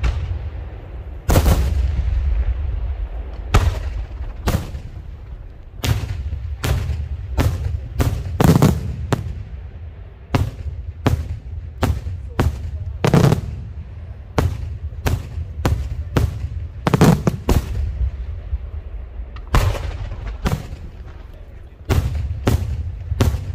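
Daytime aerial fireworks: shells bursting overhead in a rapid, irregular series of loud bangs, about one or two a second, each trailing a low, echoing rumble, with a quicker cluster of bursts near the end.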